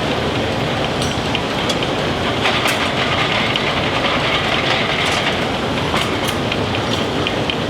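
Belt-driven line-shaft machinery running, a steady mechanical clatter with many small ticks and clicks.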